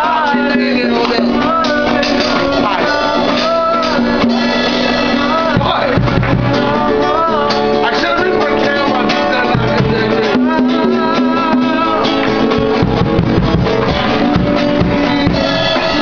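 A song playing steadily, with guitar and a singing voice.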